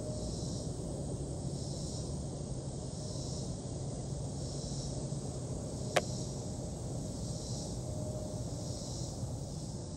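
Insect chorus, a high hiss swelling and fading about once a second, over a low steady rumble, with one sharp click about six seconds in.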